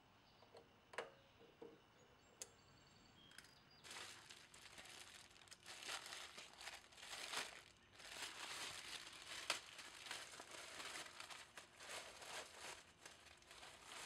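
A couple of sharp metal clicks from snap ring pliers working at the mower's axle and pinion gear, then a plastic parts bag crinkling and rustling as it is handled, for about ten seconds.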